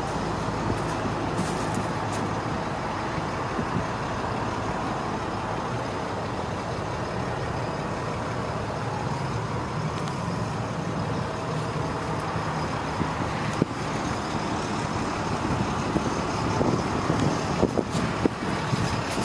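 A 1983 Bobcat skid-steer loader's engine idling steadily, with a few short knocks near the end.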